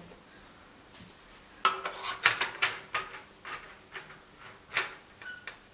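Corrugated flexible metal pattern tubes clinking and rattling against the engine and frame as they are handled into place. The clatter starts about a second and a half in, comes thickest for a second or so, then thins to scattered clicks.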